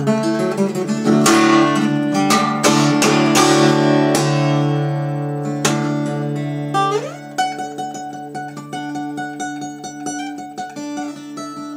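Acoustic guitar in open C tuning, played solo: loud strummed chords over ringing low strings for the first several seconds, then about seven seconds in a note slides upward and the playing turns quieter, with single picked notes.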